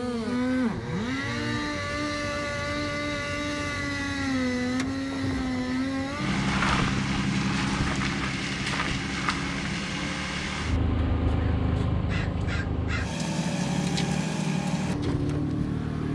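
Two-stroke chainsaw running at high revs, its pitch dropping sharply about a second in and then recovering. After about six seconds the sound changes abruptly to a rougher, lower buzz.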